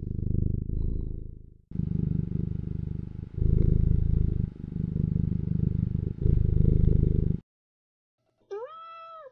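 Domestic cat purring, a low rumble that pulses with each breath and stops about seven seconds in; a single short meow follows near the end.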